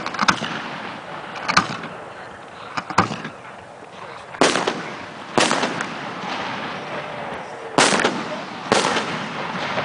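A series of homemade aerial firework shells bursting: about seven sharp bangs, a second or two apart, each followed by a short echo.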